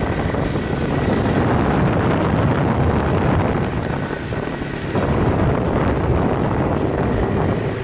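A vehicle's engine running while riding a dirt track, mixed with wind rushing over the action camera's microphone. The sound eases off briefly about four seconds in and picks up again a second later.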